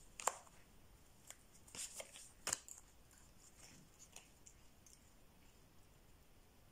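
Tarot cards being handled: a few short, crisp card snaps and rustles in the first three seconds, then faint room tone.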